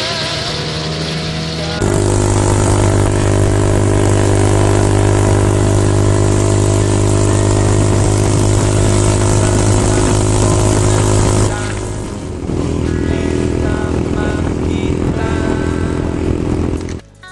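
Motorcycle engine running steadily while riding, with a constant pitch. The sound changes abruptly about two seconds in and again after about twelve seconds, and drops away sharply just before the end.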